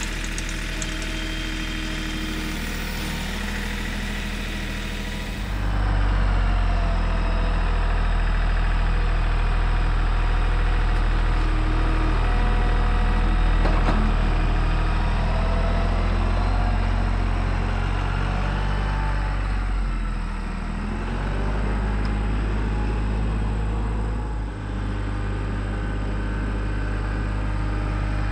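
Compact tractor's engine running steadily as its front-end loader works, louder from about five seconds in.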